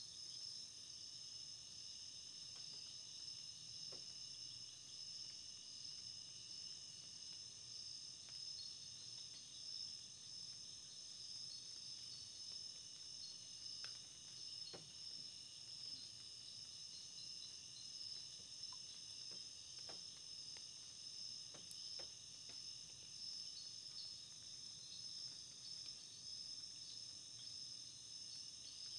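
Faint, steady chorus of insects trilling, several high-pitched trills at once, with a few faint ticks.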